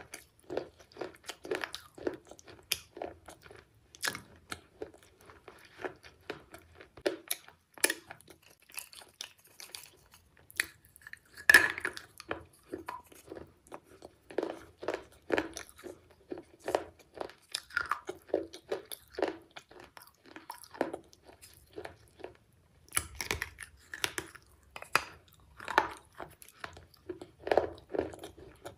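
Close-up crunching and chewing of baked terracotta clay pot shards, sharp crisp bites and grinding chews coming irregularly, several a second at times, with one especially loud crunch a little before halfway.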